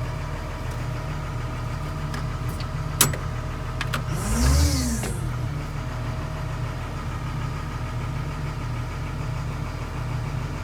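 Diesel engine of a Doosan DX140W wheeled excavator idling steadily; its hard-starting fault has just been repaired. There is a sharp click about three seconds in, and a second later a brief rise and fall in pitch with a hiss.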